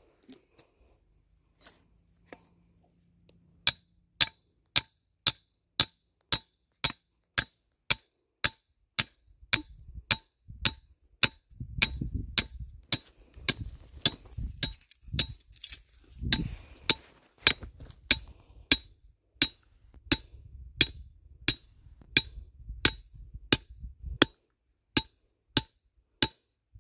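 Steel-headed hammer striking a metal trap stake over and over, driving it into clay ground: sharp ringing metal-on-metal blows at about two a second, starting a few seconds in.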